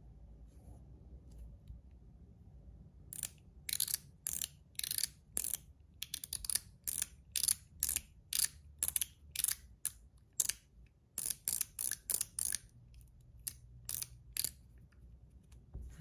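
Zirconium Metal Toys DZ Top D clicker fidget being worked by hand, giving a run of sharp metallic detent clicks, two or three a second, starting about three seconds in and stopping near the end.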